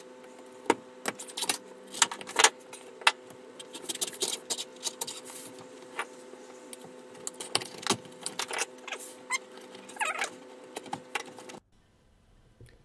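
Metal tyre levers clicking and knocking against a motorcycle wheel's alloy rim as the tyre is worked off, in irregular clinks over a steady hum; it all cuts off suddenly near the end.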